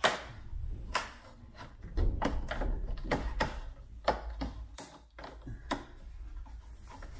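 Plastic clip tabs of a BMW Mini's lower front bumper trim strip clicking and snapping as the strip is prised out of the bumper with a screwdriver. There are about ten irregular sharp clicks, the strongest right at the start.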